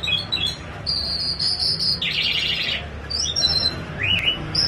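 A songbird singing a varied phrase of quick high chirps and trills, with a rising note about four seconds in.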